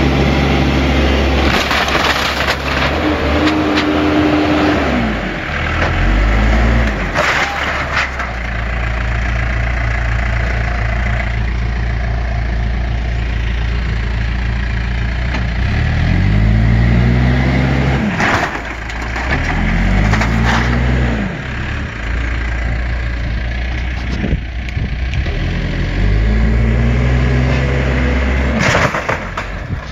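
Case backhoe loader's diesel engine running under load, revving up and easing off several times as the loader works. Sharp cracks and crunches of wood and siding come through a few times as the bucket pushes into the barn wall.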